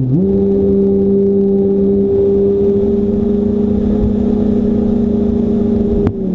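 Radio-controlled model airplane's motor and propeller running at a steady pitch, picking back up to speed right at the start. About six seconds in there is a sharp click and the pitch drops a little as the throttle is eased, with wind rushing over the onboard microphone throughout.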